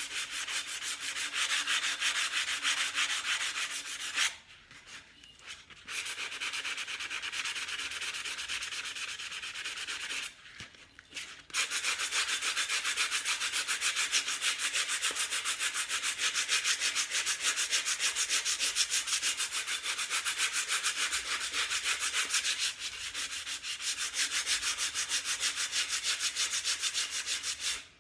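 Fine-grit sanding sponge rubbed in rapid back-and-forth strokes over the painted glass of a mason jar, lightly sanding the paint to distress it. A steady scratchy rasp, broken by two short pauses about four and ten seconds in.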